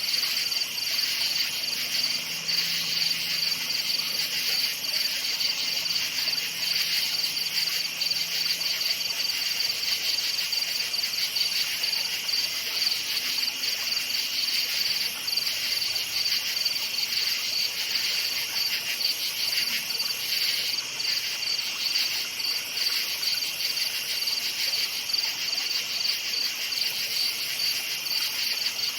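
Night chorus of crickets chirping continuously in rapid, even pulses, a dense high-pitched trill at two pitches.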